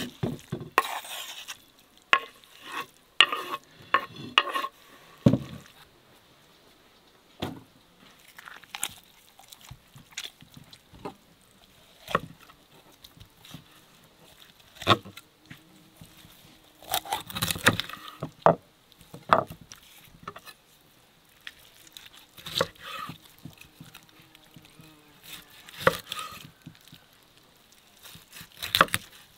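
Kitchen knife knocking and scraping on a wooden cutting board: first pushing chopped vegetables across the board, then carving roasted whole chickens, with crackling as the crisp skin and joints are cut. Irregular sharp knocks with quiet gaps between them.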